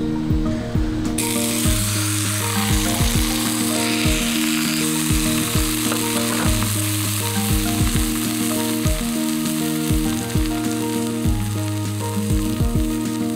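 Beef steak sizzling as it sears in a preheated cast iron skillet over high heat, the sizzle starting suddenly about a second in. Background music with a steady beat plays underneath.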